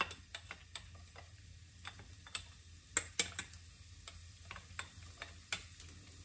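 Minced garlic frying gently in a little olive oil over low heat in a frying pan, a soft sizzle broken by irregular small crackles and pops, a few louder ones about three seconds in.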